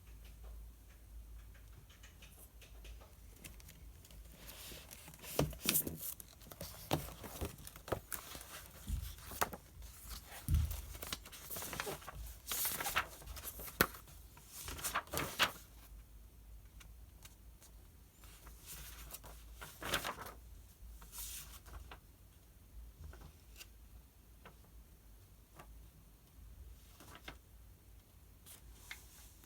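Paper handling at a desk: pages of a study book turned and rustled in several quick swishes, with light ticks and taps in between.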